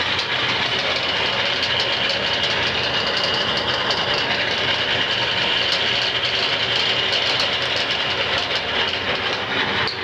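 Wood lathe running with no workpiece, its motor and variable-speed pulley drive turning the spindle at roughly 700 to 1,000 RPM: a steady mechanical hum with a faint high whine.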